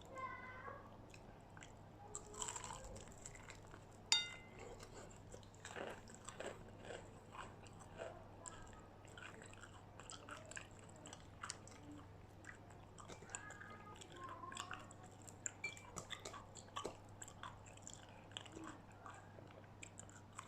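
Close-up chewing and crunching of battered fried chicken and curly fries: faint, irregular crisp crunches and mouth sounds, with one sharp click about four seconds in.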